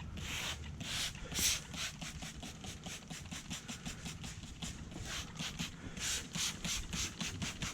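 Hand-cleaning the lower edge of a car's window glass before tinting: quick repeated scrubbing strokes, a couple a second at first and faster, three to four a second, in the second half.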